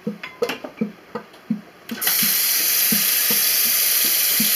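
A kitchen tap is turned on about halfway through. A steady stream of water runs into a stainless steel bowl of soaked white beans, filling it with fresh soaking water. Under it, soft low thumps repeat about three times a second throughout.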